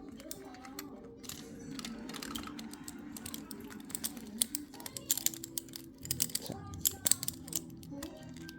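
Scattered, irregular hand clapping from a small audience, loudest and densest from about five to seven seconds in, over faint background music.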